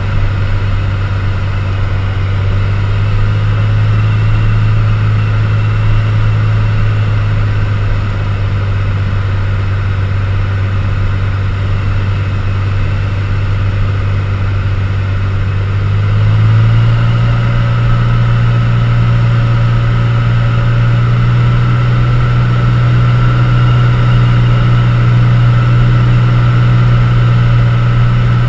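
Cessna U-206G Stationair's Continental flat-six engine and propeller droning steadily, heard from inside the cockpit on the landing approach. About sixteen seconds in, the drone steps up slightly in pitch and gets a little louder.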